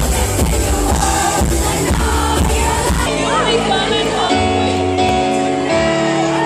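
Live electro-pop music played loud through a concert sound system. A pounding bass beat drops out about three seconds in, leaving held synth chords.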